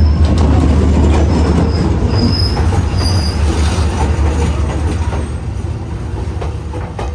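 Train passing close by with a loud low rumble, with short high wheel squeals about two to three seconds in; the rumble slowly fades toward the end.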